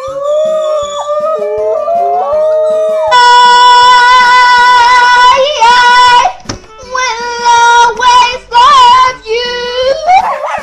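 Several wolves howling together in overlapping, slowly rising tones. From about three seconds in, a girl sings a loud, long held high note, then shorter sung phrases, and the wolf howling comes back near the end.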